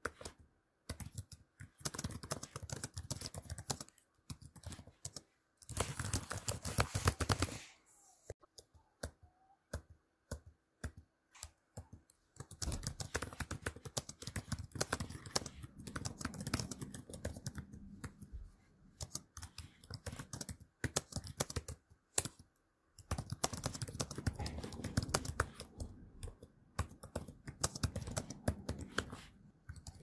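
Typing on a Dell laptop keyboard: runs of rapid key clicks, broken by short pauses and a sparser stretch of scattered keystrokes.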